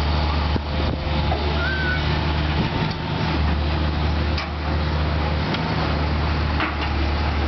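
Heavy demolition machinery's engine running steadily with a low hum that eases and picks up again a few times, mixed with scattered light knocks and clatter.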